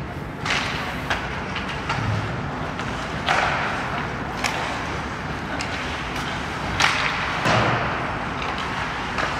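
Ice hockey play: skate blades scraping the ice in several short hissing bursts, with sharp clacks of sticks on the puck and a thud off the boards.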